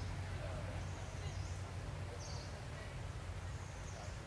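Outdoor woodland ambience: short high-pitched chirps repeating about once a second over a low steady rumble.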